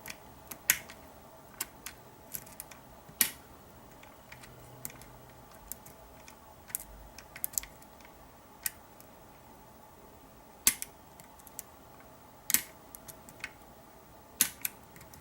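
Irregular small sharp metallic clicks and ticks from a lock pick working inside a Kwikset SmartKey deadbolt, pushing a slider over into another gate.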